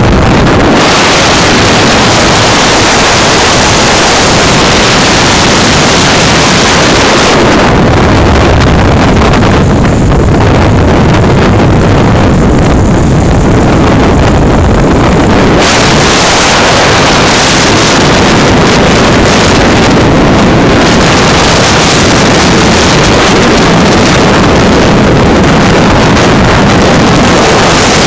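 Loud, steady wind buffeting on the microphone while travelling at speed along a road, mixed with vehicle and road noise. The high hiss thins out for several seconds around the middle, then returns.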